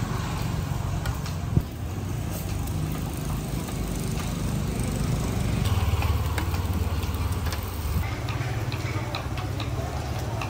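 Metal tongs clicking against grilled mussel shells as they are picked off a charcoal grill onto a plate, over a steady low motor hum.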